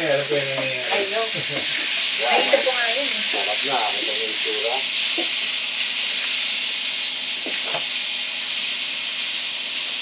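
Cubed pork belly sizzling hard in a wok over a gas burner, browning in its own rendered fat while it is stirred with a spatula. The sizzle is loud and steady, with a couple of short clicks from the spatula on the pan.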